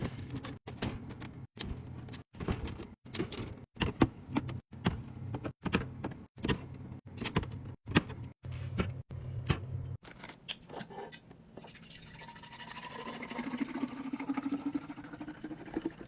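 Clicks, knocks and clatter of kitchen containers and packages being handled and set down, in short edited snippets over a low steady hum. In the last few seconds a softer sound rises steadily in pitch.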